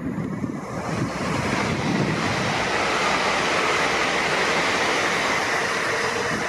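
TransPennine Express Class 802 train passing through the station at speed: a steady rush of wheel and air noise that builds about a second in and holds as the train sweeps by.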